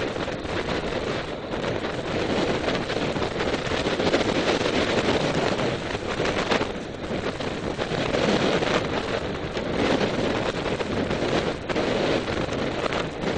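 Wind buffeting the camera microphone: a steady rushing noise that swells and eases.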